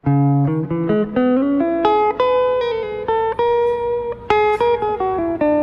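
Background music: a plucked guitar plays a melody. It starts suddenly with a quick rising run of notes, then moves to longer held notes.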